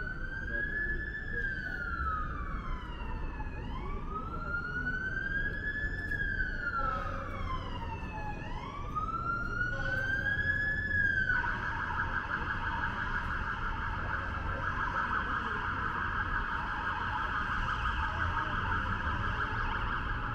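Emergency vehicle siren wailing in slow rises and falls, about five seconds per cycle, then about eleven seconds in switching abruptly to a fast yelp. A low street rumble runs underneath.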